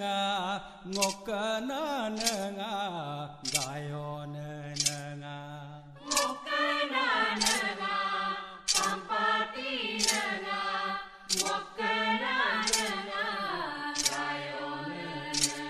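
Ritual prayer chanting: voices chanting a slow, rising-and-falling line with long held notes. A sharp clap or strike falls about every 1.3 seconds.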